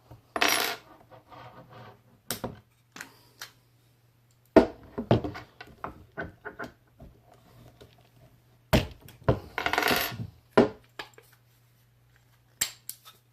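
Sharp metal clicks, clinks and knocks from a paintball marker being taken apart by hand as its takedown pins are pushed out, with two longer scraping sounds, one about half a second in and one around nine to ten seconds in.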